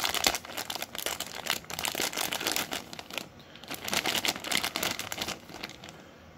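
Packaging crinkling and crackling as board-game pieces are handled and unwrapped, dying away near the end.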